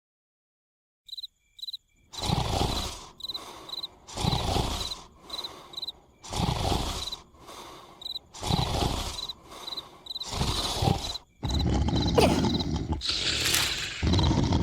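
Exaggerated cartoon snoring, a loud rasping snore about every two seconds with smaller breaths between, over steady cricket chirping; the last few seconds are denser and louder.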